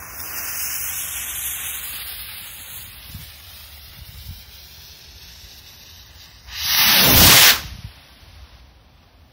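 VZHIK sky rocket lit and going up: a hiss that swells just after the start and fades over the next few seconds as the rocket climbs. About two-thirds of the way through there is a loud rush of noise lasting about a second.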